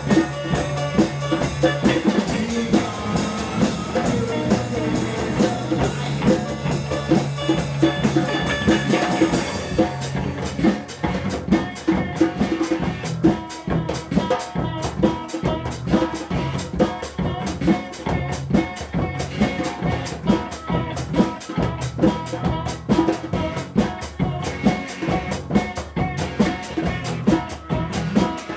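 A live band jamming: a drum kit keeps a steady beat with snare and bass drum hits under sustained guitar and bass tones. About nine seconds in, the dense, full sound thins out, leaving the drums more prominent.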